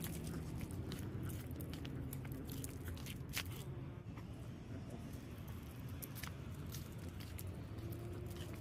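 Quiet eating sounds: soft bites and crunches, with sharp little clicks scattered a second or more apart over a low steady background hum.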